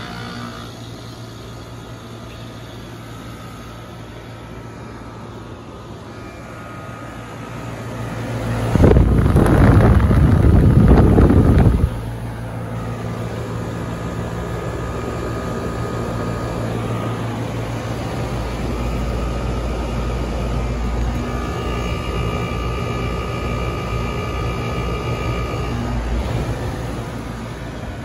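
2007 Goodman GSH13 heat pump outdoor unit running with a steady hum, in a defrost cycle. About nine seconds in a loud rushing noise swells up and lasts about three seconds, then cuts off suddenly.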